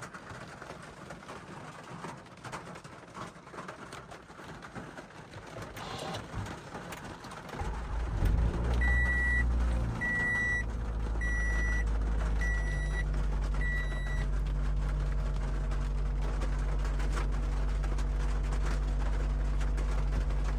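Rain patter, then the 2013 Toyota RAV4's 2.5-litre four-cylinder engine cranks and starts about eight seconds in, flaring up briefly before settling to a steady idle. A high dashboard chime beeps five times as the engine settles.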